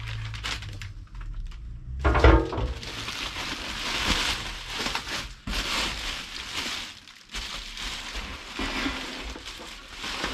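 Packaging rustling and crinkling as stamped sheet-metal body panels are handled and lifted out of a parts box, with a loud thump about two seconds in.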